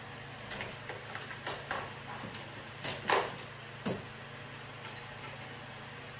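Metal parts of a three-jaw harmonic balancer puller clicking and clinking together as they are handled and fitted: a string of irregular taps over about three and a half seconds, the loudest clank about three seconds in.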